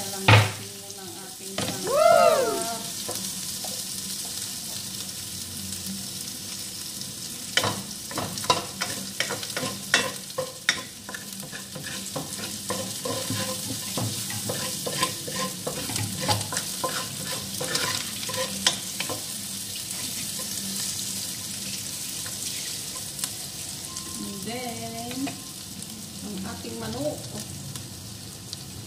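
Ginger and onion sizzling in hot oil in a stainless-steel pot, stirred with a wooden spatula that scrapes and knocks against the pot, with a run of knocks between about 8 and 19 seconds in.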